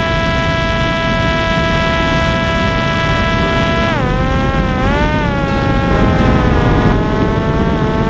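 Parrot Disco drone's electric pusher motor and propeller whining at a steady pitch over rushing airflow. About four seconds in, the whine drops in pitch and wavers, then settles lower and slowly climbs again as the drone eases off from its climb and levels out.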